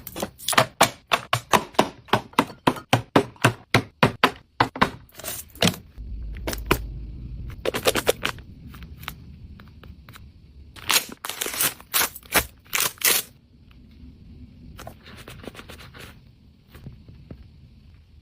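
Package handling during unboxing: a fast, even run of sharp taps or clicks, about four a second, for the first six seconds. Then come bursts of scraping and rustling about halfway through, and fainter handling noise near the end.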